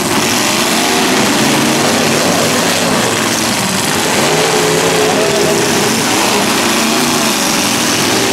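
Several full-size demolition derby cars' engines running loud together, their pitch rising and falling as the drivers rev and manoeuvre.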